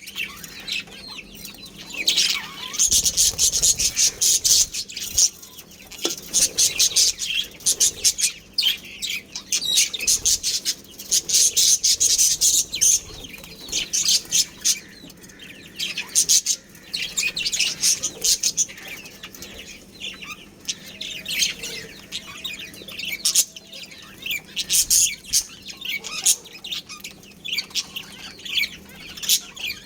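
Budgerigars chirping and chattering in rapid high bursts that come and go every few seconds, over a faint steady hum.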